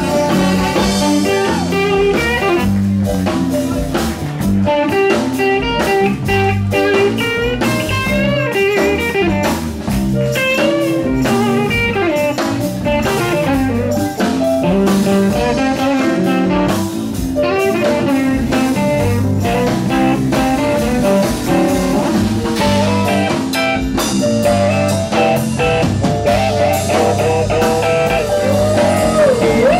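Live blues band playing an instrumental passage, a Stratocaster-style electric guitar taking the lead with bending, wavering notes over drums and the rest of the band.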